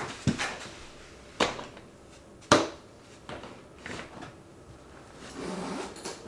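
Objects handled in a small room: a few separate sharp knocks and clacks, the loudest about two and a half seconds in, then a short rustle near the end.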